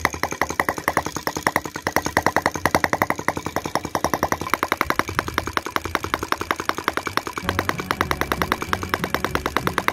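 Small Senator model petrol engine on a model tractor running fast and even, a rapid train of sharp exhaust pops, as the tractor drives off under its own power. A lower steady sound joins in under it near the end.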